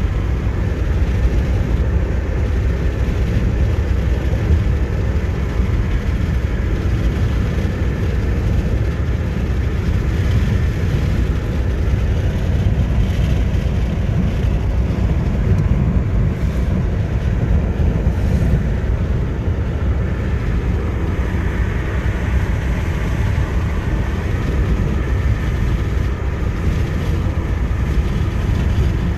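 Steady low rumble of a car's road, tyre and engine noise heard from inside the cabin while driving at a constant speed.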